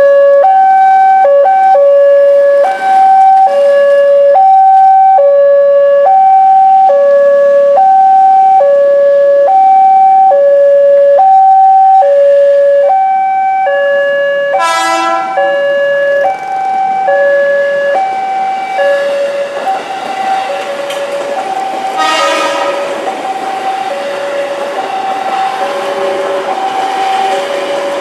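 Railway level-crossing alarm sounding its alternating high-low two-tone warning, about one cycle a second. A train horn gives a short blast about 15 seconds in and a longer one around 22 seconds in, and the noise of a KRL JR 205 series electric commuter train passing grows beneath the alarm toward the end.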